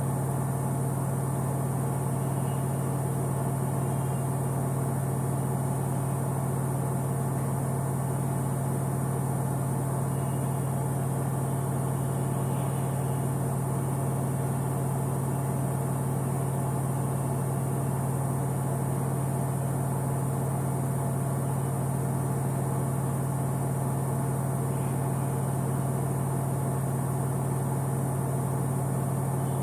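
Samsung front-load washing machine running, a loud, even motor hum with a strong low tone that holds without change.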